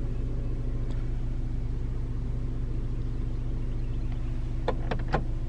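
Car engine idling, a steady low hum heard from inside the cabin, with a few small clicks near the end.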